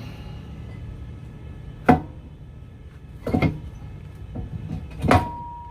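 Heavy metal brake caliper knocking against the rotor and bracket while it is fitted back into place: three sharp clanks, the last ringing briefly.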